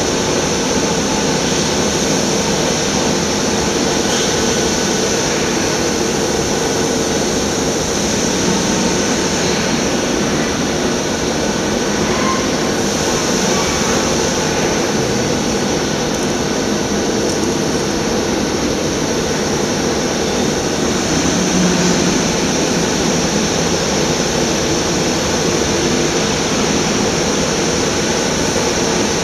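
Industrial machinery running steadily: a loud, even hum and hiss with no pauses or changes.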